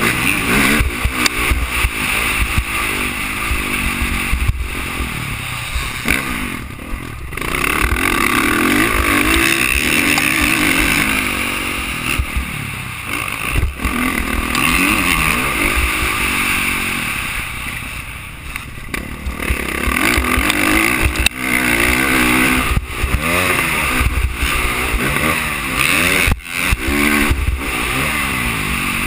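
Dirt bike engine revving up and down over and over as the rider works the throttle and gears on a rough motocross track, heard from a helmet-mounted camera. The sound drops off briefly several times, when the throttle is shut.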